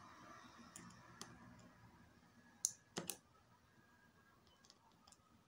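Faint, scattered clicks against near silence, the loudest two close together about three seconds in: a small screwdriver working the trimmer potentiometer on an XL6009 boost converter board.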